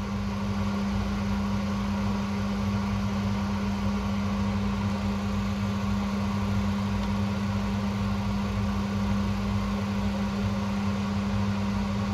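Steady low electrical hum of running equipment, with one strong even tone and a rumble beneath it.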